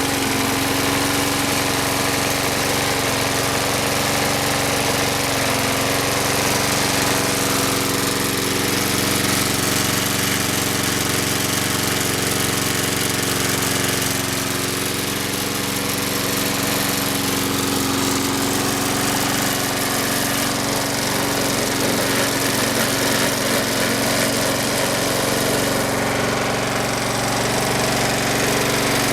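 Yard Machines push mower's replacement single-cylinder four-stroke engine running steadily at a constant speed.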